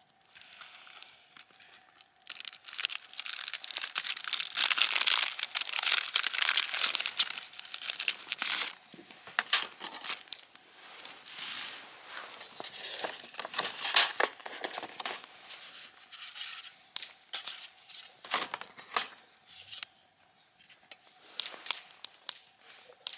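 Plastic or paper packaging crinkling and tearing as it is handled. It is densest for several seconds near the start, then breaks into scattered sharp crackles, over a faint steady hum.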